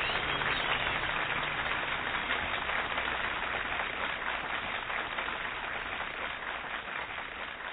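A steady rushing noise with no tones that fades out gradually.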